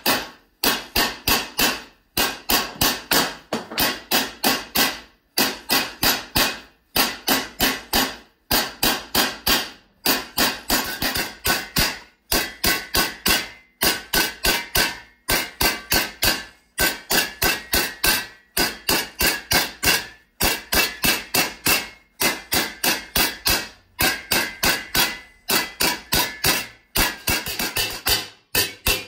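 A mallet beating sheet copper over a steel pipe stake to form a lamp shade, about four ringing blows a second. The blows come in short runs with brief pauses between.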